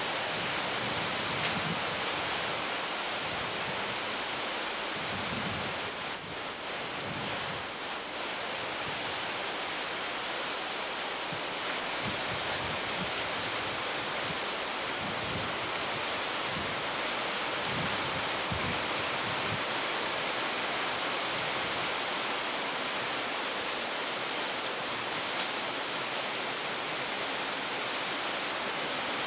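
Steady rushing of storm wind and heavy rain, with gusts now and then buffeting the microphone in low thumps.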